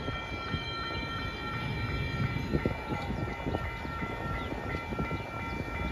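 Railroad crossing warning bell ringing rapidly and steadily, stopping near the end as the crossing gates rise, with a low rumble underneath.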